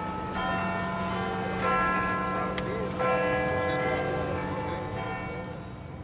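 Big Ben's clock-tower bells chiming: a few bell strikes, each new one about a second or more after the last, ringing on and fading away.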